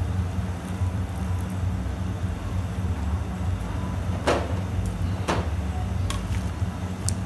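Wire-mesh skimmer working in a large steel pot of boiled corn cobs, with two short scraping knocks about four and five seconds in and a few lighter clicks near the end, over a steady low hum.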